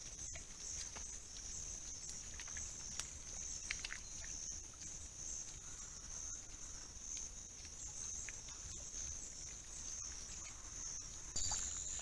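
A steady high-pitched insect drone, with scattered clicks and rustles as collared peccaries walk and forage through dry grass. Near the end the drone switches abruptly to a different, slightly higher steady tone with a second lower one beneath it.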